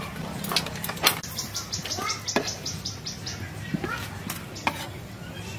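A knife clicks and scrapes against lobster shell and meat on a wooden cutting board and a metal tray, in scattered sharp knocks. About a second in, a rapid run of insect chirps at about ten a second lasts roughly two seconds.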